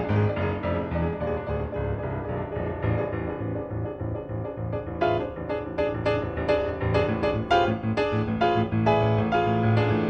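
Solo piano playing a busy, quick silent-film accompaniment; the notes grow crisper and faster about halfway through.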